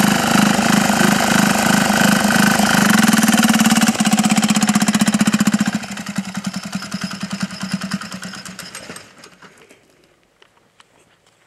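Small diesel engine on a homemade go-kart running loud and steady. From about four seconds in its beat slows into an even pulsing and it grows quieter, then it stops about nine seconds in, with the clutch locked up by the rider's account.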